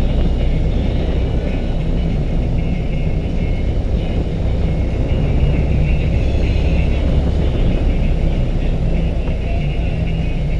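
BMW RT touring motorcycle riding at a steady pace on a gravel track: the engine running evenly with tyre and wind noise, with no gear changes or revving.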